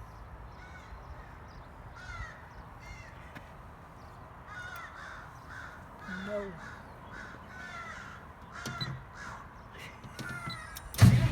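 Birds calling repeatedly in short calls over a faint low hum. Near the end the enclosed Perkins diesel engine of the 115 kW generator starts with a sudden loud burst and settles into running.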